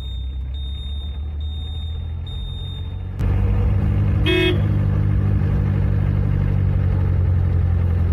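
Hindustan Ambassador's engine running steadily in third gear, heard from inside the cabin, growing suddenly louder about three seconds in. About four seconds in, the car horn gives one short toot of about half a second. A faint high beep repeats about once a second in the first three seconds.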